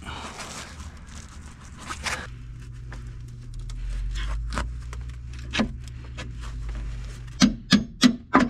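Wrench clicking and clinking on metal as a bolt on a new steering stabilizer is worked from underneath the truck, in short irregular clicks with four sharper ones close together near the end, over a steady low hum.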